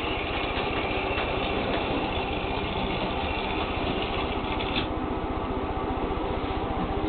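A model railway locomotive's small electric motor running, a steady whine that cuts off about five seconds in, over continuous mechanical running noise.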